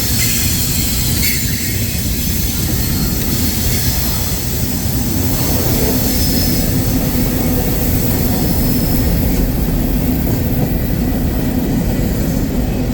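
Freight cars of a CSX freight train rolling past: a steady, loud rumble of steel wheels on rail, with faint high wheel squeal now and then.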